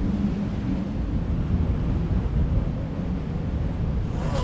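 A steady low rumbling noise that brightens into a brief whoosh at the very end.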